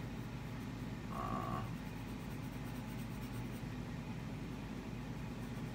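Steady low hum of room noise, with a short, half-second tone about a second in.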